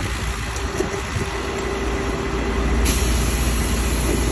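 An engine running steadily at a constant speed, a low rumble with a steady hum over it, typical of the power unit for hydraulic rescue tools or an idling fire apparatus at a vehicle extrication.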